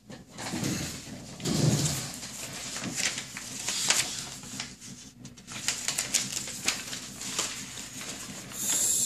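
Paper instruction sheets rustling and crinkling as they are handled, with scattered short clicks and crackles. There is a brief low murmur about a second and a half in, and a louder hiss of paper near the end.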